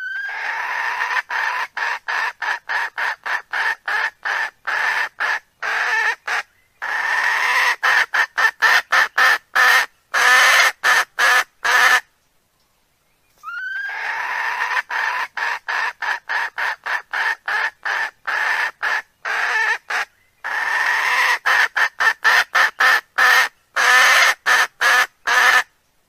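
Recorded hen call played as a lure for wild roosters: a rising squawk, then a run of rapid clucks building into louder, longer cackling notes. The same sequence of about twelve seconds plays twice, with a short pause between.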